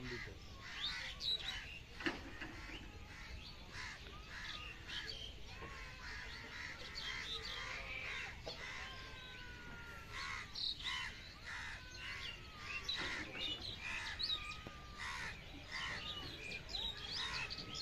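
Birds calling and chirping, crows cawing among them: many short calls scattered throughout, with a few drawn-out whistled glides in the middle.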